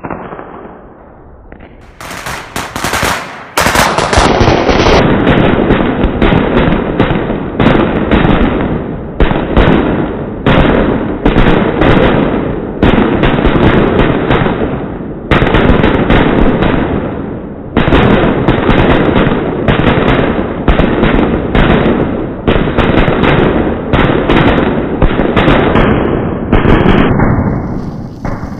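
A long string of Chinese firecrackers going off in a rapid, unbroken crackle of bangs, after a few separate bangs in the first seconds.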